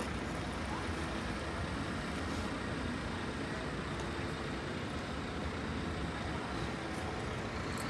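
Steady low rumble of town traffic and vehicle engines, with a few faint ticks.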